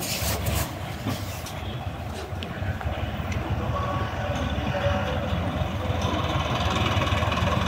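Sonalika DI 50 tractor's diesel engine running steadily as it pulls a loaded soil trailer, with a few sharp clicks in the first second and a half.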